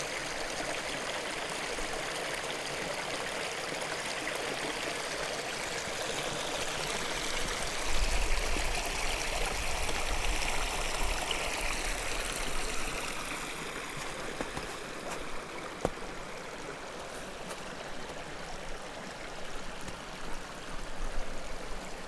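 A small brook running steadily. A low rumble joins it about eight seconds in and fades after a few seconds.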